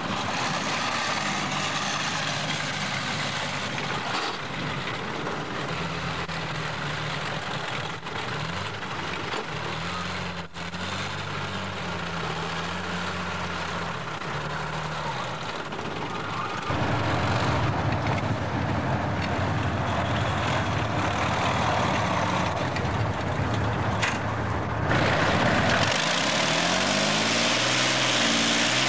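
Diesel engine of a BMP-1 tracked infantry fighting vehicle running under load as it drives off-road, its pitch rising and falling. The sound steps up louder about two-thirds of the way through, and near the end the engine revs up with a rising pitch.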